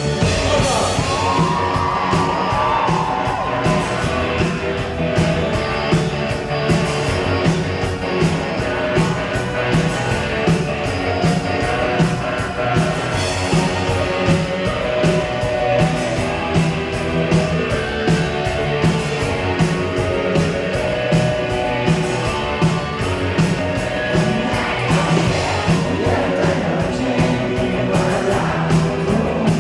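Live rock band playing loud, with singing over a steady drum beat and the crowd yelling along.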